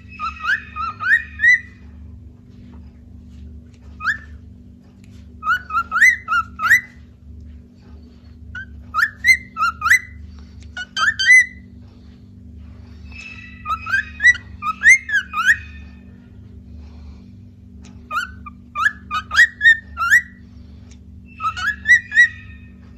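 Cockatiels whistling in short bursts of quick rising notes, a phrase every few seconds with pauses between.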